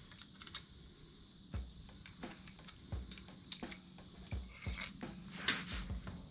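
Metal parts and packaging being handled by hand: scattered light clicks and knocks with rubbing between them, and a louder scrape about five and a half seconds in.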